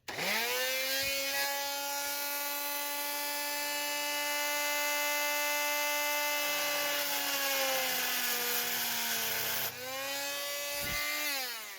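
Electric power tool with a carbide-toothed blade cutting through a rusted steel muffler bolt. Its motor spins up to a steady high whine that sags a little in pitch under load, dips briefly, then winds down near the end.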